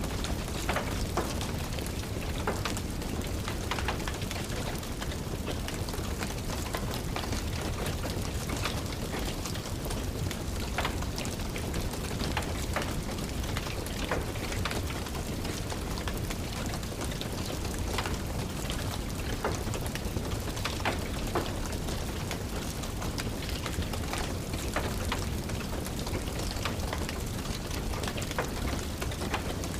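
Steady rain tapping, mixed with a wood fire crackling in a fireplace: a constant hiss with sharp little pops and clicks at irregular moments.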